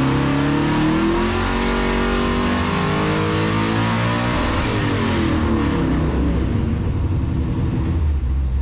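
Twin-turbo LS V8 at full throttle on a hub dyno, heard from inside the car, its revs climbing steadily for about five seconds in a pull making close to 1,000 hp. Then the throttle closes and the sound falls away to a low steady hum.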